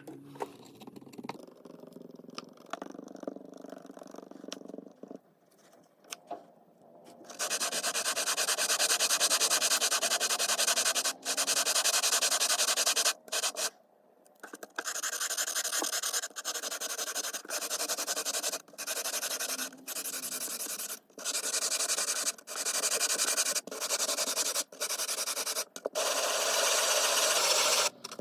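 Abrasive sanding of metal: a faint scraping for the first few seconds, then a loud, steady gritty hiss from about seven seconds in that runs in stretches of a second or more, each starting and stopping abruptly.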